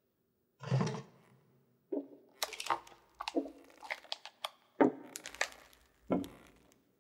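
A quick run of sharp cracks and knocks in the middle, set between a few heavier thuds near the start and the end.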